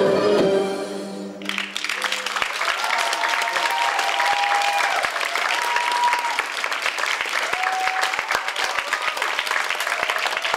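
Belly dance music comes to an end about a second in. An audience then breaks into steady applause, with cheers and drawn-out whoops rising over the clapping.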